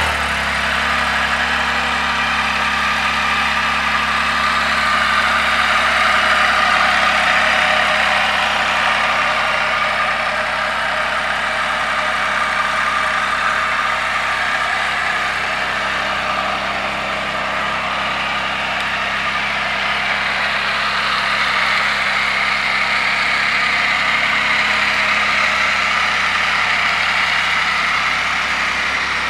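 2021 Can-Am Spyder F3 Limited's Rotax 1330 ACE inline three-cylinder engine idling steadily.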